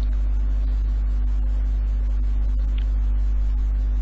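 Steady electrical mains hum on the recording, a low drone with a few higher overtones, with a faint click about two and a half seconds in.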